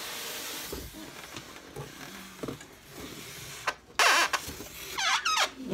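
Styrofoam incubator body being worked out of its cardboard box: scraping and rustling of foam against cardboard, with a loud scrape about four seconds in and a couple of high wavering squeaks of foam rubbing just after.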